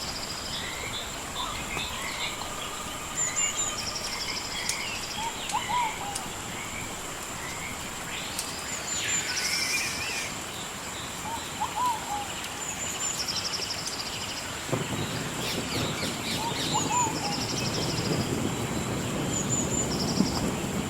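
Several birds singing in a recorded outdoor ambience: paired high chirps, buzzy trills and a lower two-note call, each coming back every few seconds, over a steady high-pitched tone. From about three-quarters of the way in, a low rumble of thunder sets in beneath them.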